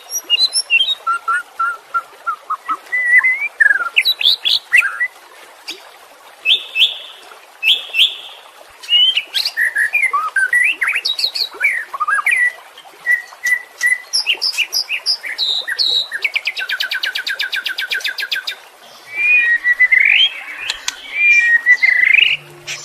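White-rumped shama (murai batu) singing a varied song of loud clear whistles and slurred, sliding phrases, with a fast rattling trill lasting about two seconds roughly two-thirds of the way through.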